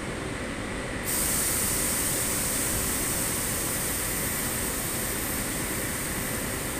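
A loud, steady hiss of escaping compressed air starts suddenly about a second in, over the steady running noise of a standing ChS6 electric locomotive.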